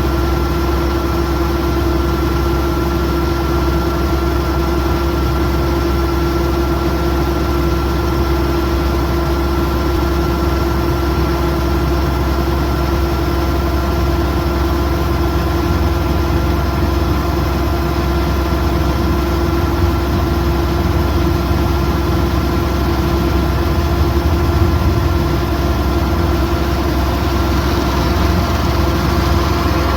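Kubota DC108X combine harvester's diesel engine running steadily under working load, with a steady whining tone over the engine noise.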